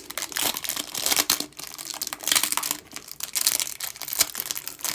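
Panini Chronicles soccer trading cards being slid over one another and flicked through by hand: a continual run of papery rustles and small clicks.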